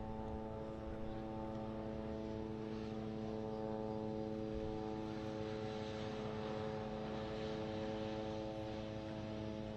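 Aircraft engine droning at one steady pitch overhead, over a low rumble.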